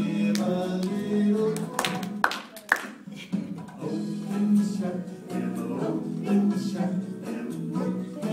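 A children's action song sung with a strummed guitar, with a few sharp claps about two seconds in.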